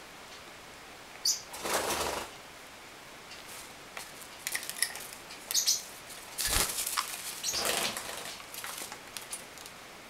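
Pet parrots flapping their wings in several short bursts, with a thump about six and a half seconds in.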